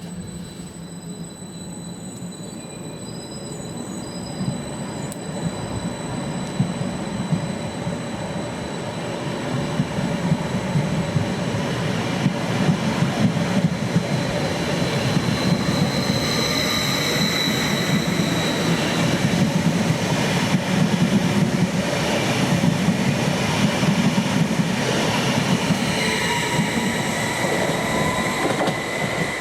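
A train running along the track, its rumble growing louder over the first ten seconds or so. A thin metallic squeal joins in from about halfway.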